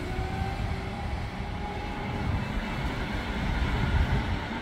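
Street traffic dominated by a passing public-transport vehicle: a steady low rumble with a faint thin whine that drifts slightly upward, growing a little louder about four seconds in.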